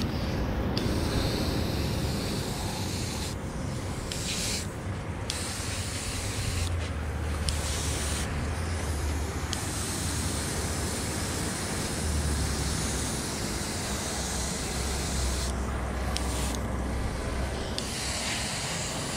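Airbrush hissing in short spurts as its trigger is pressed and released, with brief breaks between sprays. A low rumble comes and goes underneath.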